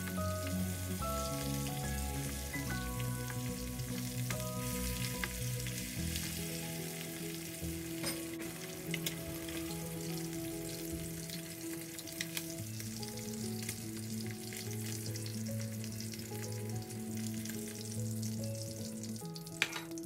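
Sardines shallow-frying in hot oil in a kadai: a steady sizzle with fine crackling and spitting. Soft background music with held low notes plays underneath.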